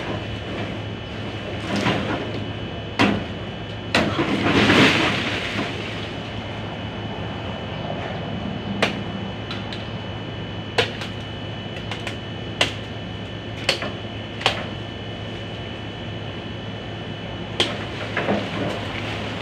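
Bolo knife (itak) chopping into a tree branch: about a dozen sharp strikes at uneven gaps of one to two seconds, with a longer rustling burst of leaves about five seconds in.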